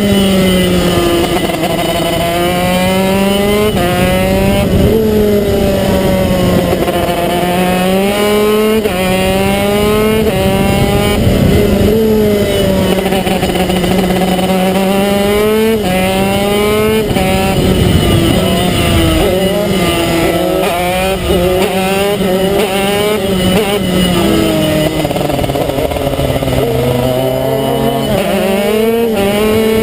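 TM KZ10 125 cc two-stroke shifter kart engine heard from the driver's seat at racing speed, revving up in rising sweeps that drop sharply at each upshift, and falling in pitch through downshifts into corners.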